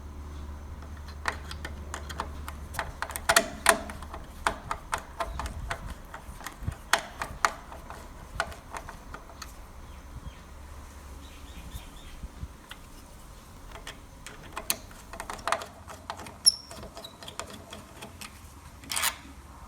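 Irregular clicks and light taps of small hard objects being handled, some ringing briefly like metal, with a low hum underneath in the first few seconds.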